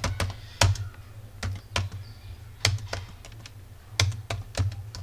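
Computer keyboard keys being typed, a run of irregular clicks with a dull thump under many of the strokes as a word is keyed in.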